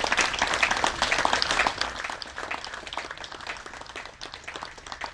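Audience applauding with many hands clapping. It is loud for about the first two seconds, then thins out and fades.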